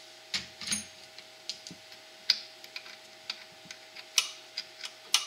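Irregular sharp metallic clicks and taps, about a dozen in five seconds, from parts being handled inside the open crankcase of a 17 HP Briggs & Stratton engine. A faint steady hum runs underneath.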